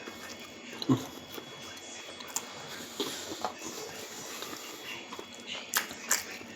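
A person chewing and eating with their hands, with wet mouth smacks and small clicks, and one louder low thump about a second in.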